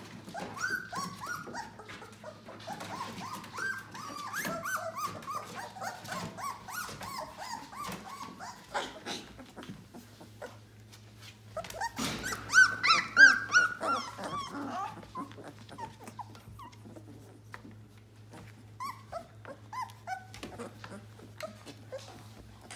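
A litter of 18-day-old yellow Labrador Retriever puppies whimpering and yelping in short high-pitched calls as they crawl over one another. The calls come thickest and loudest in a flurry about halfway through, then thin out to scattered whimpers.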